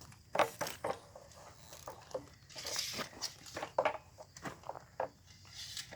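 Workshop handling noise: scattered light knocks and clicks, with a brief rasping hiss about two and a half seconds in.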